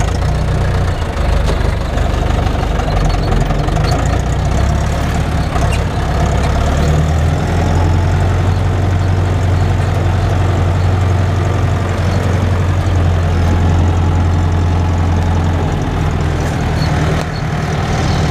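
Zetor tractor's diesel engine running as the tractor drives off, heard from inside the cab. It runs louder through the middle stretch and eases back about sixteen seconds in.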